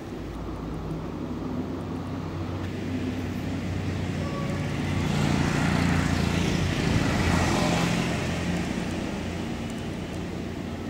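A motor engine running steadily. A vehicle goes past, growing louder to a peak about six to seven seconds in, then fading.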